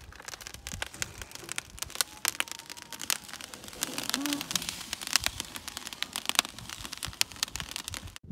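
Wood fire crackling with frequent, irregular sharp pops, under a wire grill where raw meat is being laid to roast.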